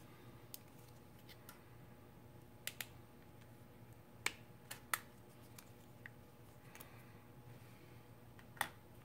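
Scattered sharp plastic clicks and snaps as the clip-fastened plastic bracket inside an LG G5 smartphone is worked loose by hand: a few light ticks, then the loudest snaps about four and five seconds in and another near the end.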